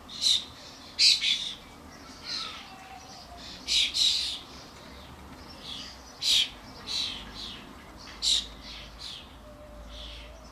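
Common starlings, adults and fledglings, calling at a bird feeder: about a dozen short, scratchy calls at irregular intervals, some coming in quick pairs.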